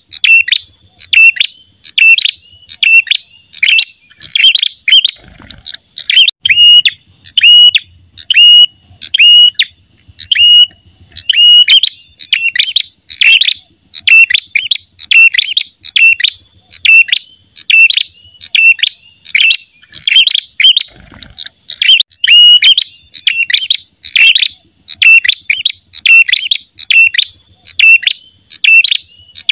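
Ashy tailorbird (prenjak kepala merah) giving its aggressive 'fighting' song: loud, sharp ringing notes repeated about twice a second without a break.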